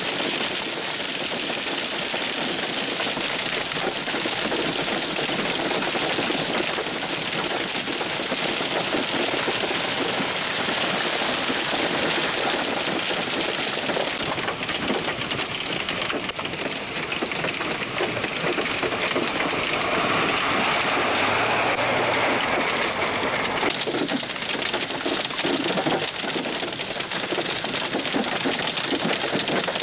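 Heavy hailstorm: hailstones about an inch across pouring down in a dense, steady clatter on pavement, parked cars and the ground. The tone of the clatter shifts about halfway through and again near the end.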